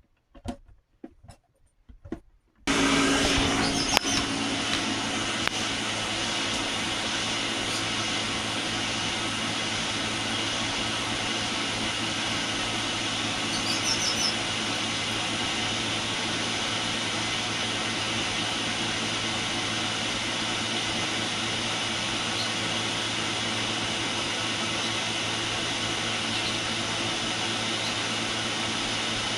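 A steady electric motor whir, typical of a kitchen appliance, switches on abruptly about three seconds in and runs evenly without change.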